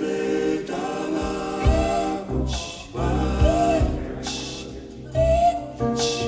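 Vocal music: several voices singing long, held notes in harmony over a bass line, with the lead voice sliding between pitches.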